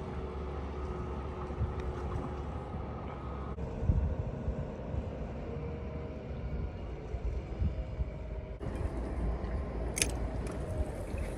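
A vehicle's engine runs steadily with a low rumble. The sound changes abruptly twice, about three and a half and eight and a half seconds in, and there is a sharp click near the end.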